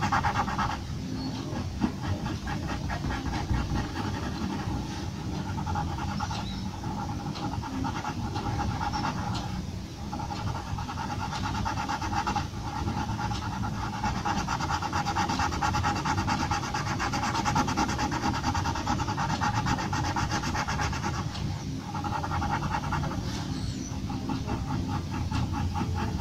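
Graphite pencil shading on paper: rapid back-and-forth scratching strokes that pause briefly a few times, over a steady low rumble.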